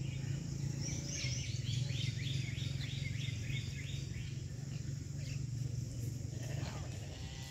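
A bird calling in a quick run of high chirps, about four a second, starting about a second in and lasting a couple of seconds, over a steady low hum.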